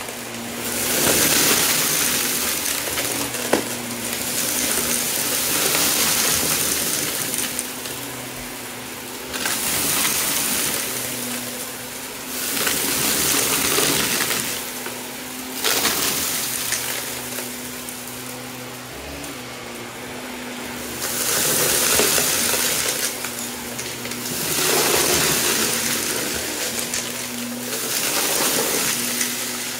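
Shark upright vacuum running over carpet, sucking up a thick scatter of shredded plastic debris that rattles up the nozzle. The rushing noise swells and eases in strokes every few seconds over a steady motor hum.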